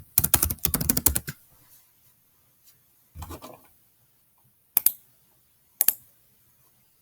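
Fast typing on a computer keyboard, a rapid run of key clicks that stops a little over a second in. A short muffled sound follows about three seconds in, then two single sharp key or mouse clicks about a second apart.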